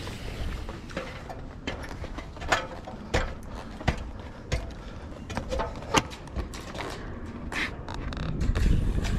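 Irregular clicks and light knocks from a long steel tape measure being handled and run out along a gutter. Wind rumbles on the microphone near the end.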